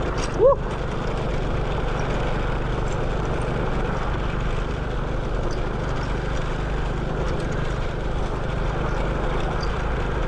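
Motorcycle engine running steadily while riding, with wind rushing past the microphone.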